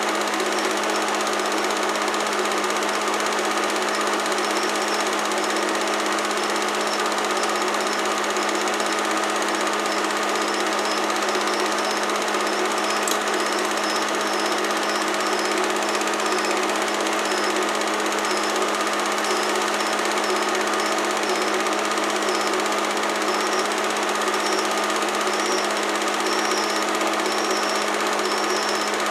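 Film projector running: a steady mechanical clatter with a constant hum underneath.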